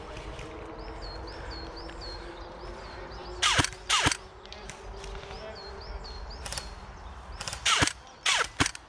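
Airsoft guns firing single shots: two cracks about half a second apart, then three more near the end, several followed by a quick falling whistle. A faint, rapid high chirping runs underneath.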